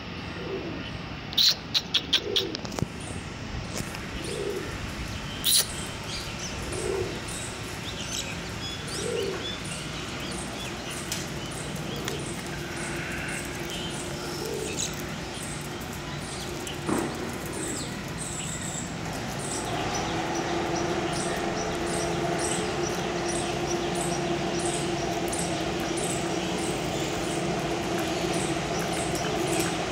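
A dove cooing, a low call repeating every two seconds or so, with high chirps in the background and a few sharp clicks early on. A steady low hum comes in about two-thirds of the way through.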